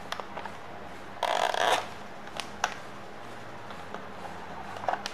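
Packaging handling noise as a neckband Bluetooth headset is worked out of its moulded plastic tray: a half-second scraping rustle of plastic a little over a second in, with scattered light clicks and taps.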